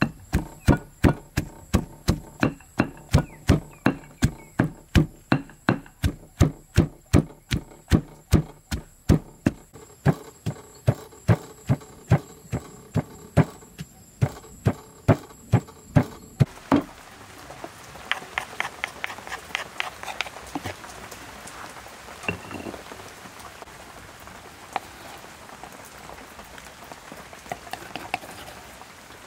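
Stone pestle pounding garlic and lemongrass in a stone mortar, a steady knock about twice a second for roughly sixteen seconds. After that the pounding stops and only softer, scattered clicks and knocks are heard over a light background hiss.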